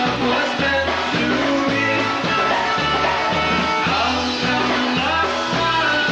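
Live polka band playing an upbeat tune, with a bouncing bass line marking a steady beat about twice a second under the melody instruments.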